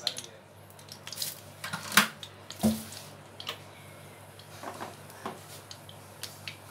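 Scattered light clinks and knocks of kitchen utensils against a nonstick kadhai while oil goes into it, the loudest two about two and three seconds in, over a faint steady hum.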